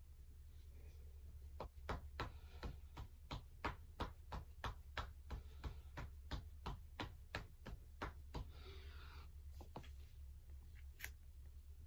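A fast, even run of short sharp clicks, about three a second, for several seconds over a low steady hum, then one more click near the end.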